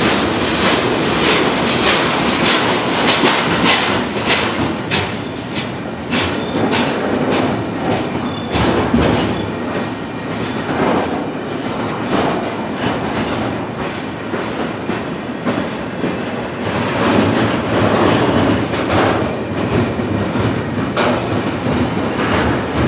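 Double-stack container train's well cars rolling past at close range: a steady rumble of steel wheels on rail, broken by many sharp clacks as the wheels cross rail joints.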